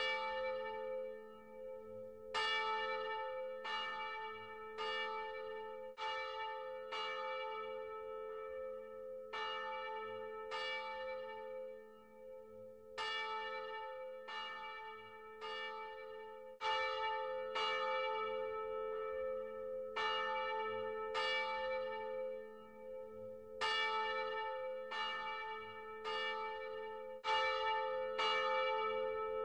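Church bells ringing in runs of quick strikes, about one every 0.7 seconds, with short pauses between runs. Each strike rings on over a steady low hum.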